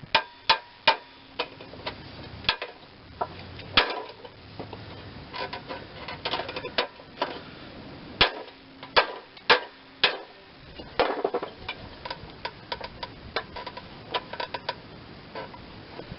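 Hammer blows on the steel of a Craftsman 42-inch mower deck, struck at irregular spacing, some in quick clusters, several leaving a short metallic ring, with lighter taps near the end: bending the deck's metal back into shape.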